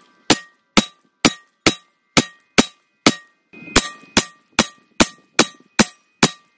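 Semi-automatic pistol fired in a rapid string, about fourteen sharp shots at roughly two a second, with a slightly longer pause a little past halfway. A faint ringing tone hangs between the shots.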